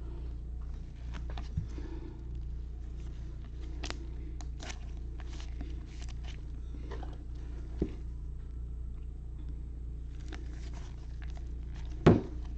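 Baseball card packs and cards being handled: scattered light rustles and clicks over a steady low hum, with one loud thump near the end.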